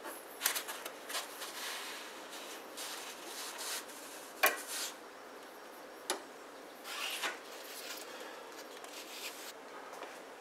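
Hands bending a mini split's copper refrigerant lines, with rubbing and scraping of the tubing and its foam insulation and a few sharp clicks, the loudest about four and a half seconds in.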